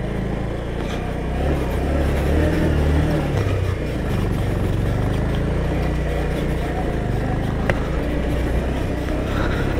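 Motorcycle engine running steadily at low revs, with a slight rise in level after the first second or two.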